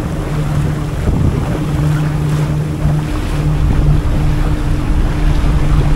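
Sightseeing boat's engine running steadily, with wind buffeting the microphone and water rushing past the hull. The low rumble builds a little toward the end.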